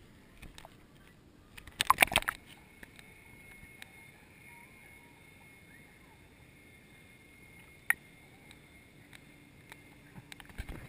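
Water splashing and sloshing against a waterproof action camera as it plunges under the surface about two seconds in. After that comes muffled underwater quiet with a faint steady whine and one sharp click, then more sloshing near the end as the camera nears the surface.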